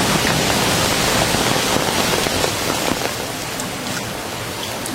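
Heavy rain falling steadily, with scattered sharp drips and patters, easing slightly about halfway through.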